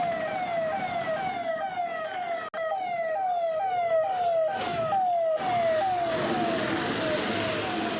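Emergency vehicle siren sounding a fast, repeated falling note, about two sweeps a second. There is a brief break about two and a half seconds in, and more background road noise from about five seconds in.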